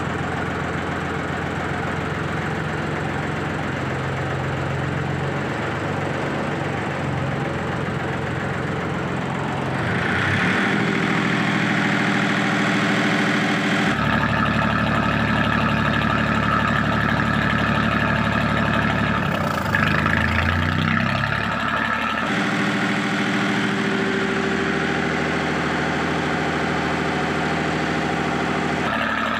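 Si Yang 380J-3 four-stroke marine diesel engine of a lifeboat running steadily. It gets louder and its note shifts about a third of the way in, and it changes again midway with a brief pitch glide before settling back near the end.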